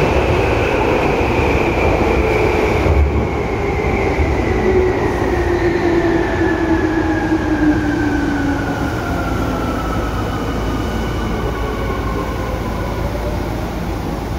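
Tokyu 8500 series train's Hitachi traction motors whining over the rumble of wheels on rail, the whine falling steadily in pitch as the train slows.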